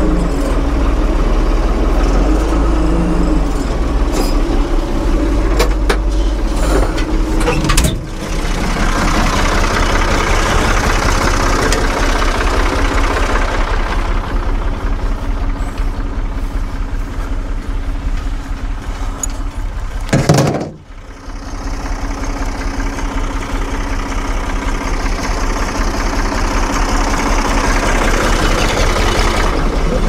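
Diesel engine of a 1975 Ford 550 tractor-loader-backhoe running steadily while the machine works, with two brief breaks: one about eight seconds in and a longer, sharper one about twenty seconds in.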